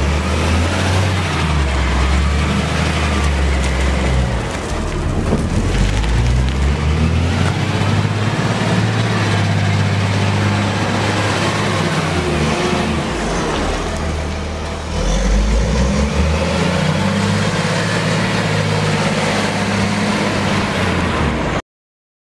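Volvo L120F wheel loader's six-cylinder diesel engine running as the loader drives about, its pitch rising and falling as the revs change. The sound cuts off abruptly near the end.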